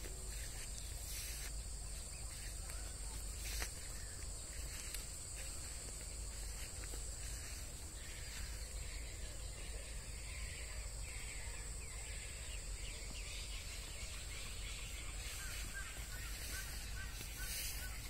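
Sugarcane leaves rustling and brushing against the phone as it moves through the cane, over a steady high-pitched drone, with a few faint chirps near the end.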